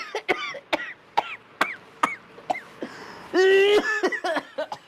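A man coughing in a long run of short, repeated coughs, with a longer drawn-out voiced cough about three and a half seconds in.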